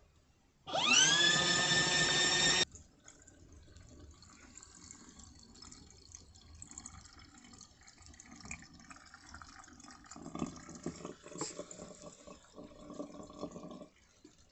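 Small portable washing machine's motor whirring up to speed with a buzzing hum, holding steady for about two seconds and then cutting off abruptly. Water sloshes and trickles in the tub afterwards, and the motor hums more quietly again near the end.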